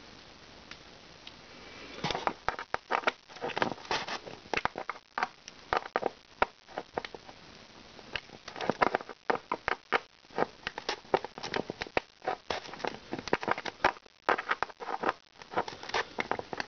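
Screwdriver working at a tight screw that holds a diecast model car in its styrofoam packaging. Irregular clicks and scrapes start about two seconds in and keep on in quick, uneven runs. The screw is hard to get out.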